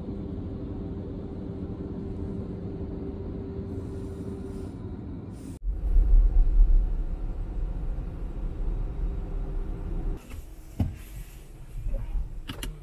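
Gantry car wash machine running over the car, heard from inside the cabin: a steady rumble with a humming tone, then a louder low rumble that drops off about ten seconds in, with a few clicks near the end.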